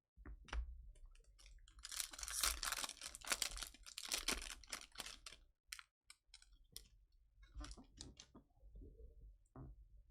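Trading-card pack wrapper crinkling and cards clicking and sliding against each other as they are handled, densest from about two to five and a half seconds in, then scattered ticks.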